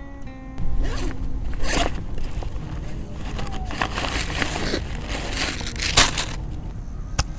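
Hands rummaging in a fabric backpack, crinkling and crushing the plastic and paper snack packets inside in irregular rustles, with a couple of sharp clicks near the end.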